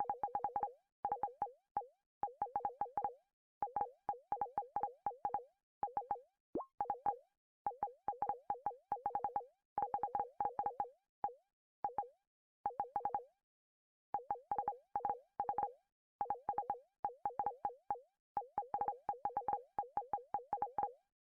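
Electronic keyboard giving short synthesizer blips, mostly at two pitches, tapped in quick flurries of several notes with short pauses between.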